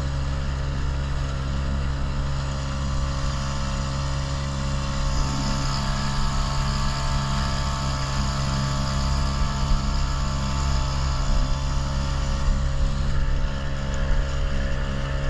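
Motorboat engine running steadily, its even drone unchanged throughout, over a constant rushing noise.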